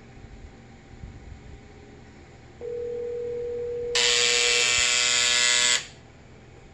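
Buzzer in a Western Electric 1A2 key telephone sounding once for nearly two seconds to signal an incoming call, buzzing in place of a bell because the key system has no ring generator. Shortly before the buzz a steady single tone starts and runs for about two seconds.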